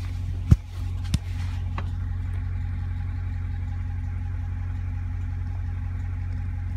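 2014 Dodge Charger R/T's 5.7-litre HEMI V8 idling with a steady low hum. Two sharp knocks come about half a second and just over a second in.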